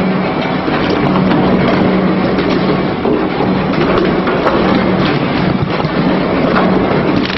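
Industrial shredder running at a steady load with a constant low hum, grinding an animal carcass in its hopper, with a few sharp cracks through the grinding.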